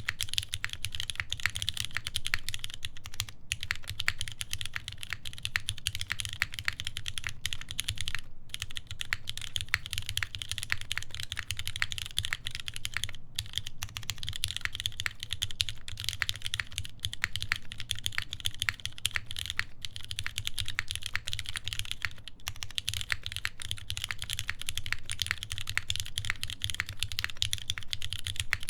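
Continuous fast typing on a Keycult No. 1 Rev. 2 TKL mechanical keyboard with lubed vintage Cherry MX Black linear switches, GMK keycaps and a full aluminium plate, broken by a few brief pauses.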